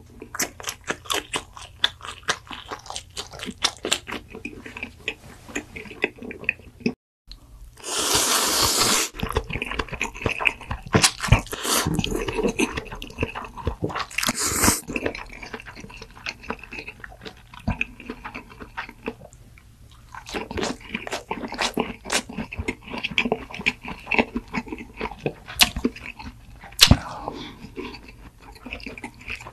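Close-miked eating sounds: chewing and crunching with a dense run of quick mouth clicks and bites. The sound drops out briefly about seven seconds in, and a loud rustling hiss comes a second later and again about fifteen seconds in.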